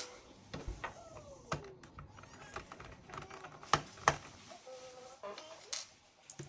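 Scattered small clicks and taps of a screwdriver working the last screws out of a laptop's bottom cover, the loudest pair close together near the middle.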